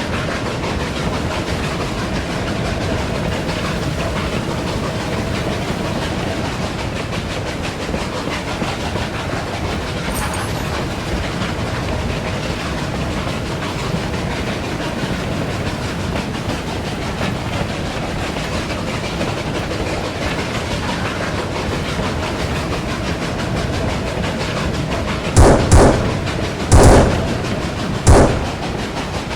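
Hand-made foley of a steam train running along the track, a steady clickety-clack. Near the end come four loud, sudden bangs over about three seconds.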